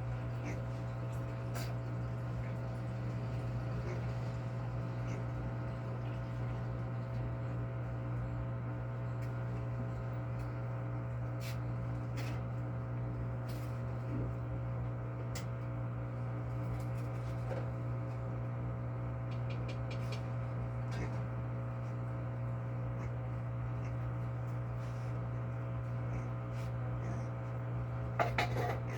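LG Inverter Turbo Drum washing machine running with a steady electrical hum and scattered light clicks, with a short rattle near the end. The machine is not going into its spin cycle, a fault the technician traces to the water-level pressure switch.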